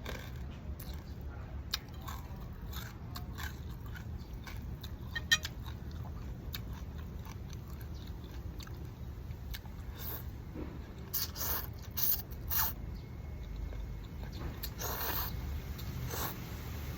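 A person eating close to the microphone: chewing and crunching with scattered clicks, and a few louder, longer noisy bursts past the middle and again near the end.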